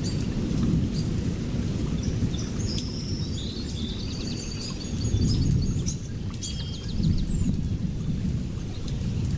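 Steady low rumbling noise, with a run of short high chirps through the middle.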